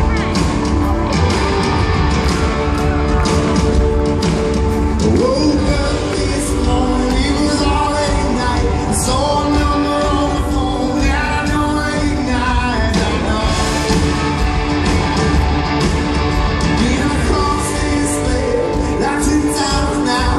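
Live rock band playing a song: electric guitars, keyboard and drums with a lead singer's vocal carried over a steady, loud mix.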